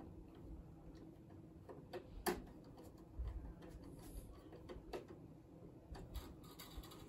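Faint, irregular small clicks and light knocks as a wire is fastened under a screw terminal on an amplifier's rear terminal strip, metal tool and wire working against the screw.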